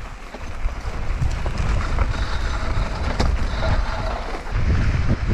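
Wind rushing over the microphone while riding a mountain bike fast down a dry dirt trail, with tyre rumble and the bike rattling and ticking over rough ground. It starts abruptly and stays loud and steady.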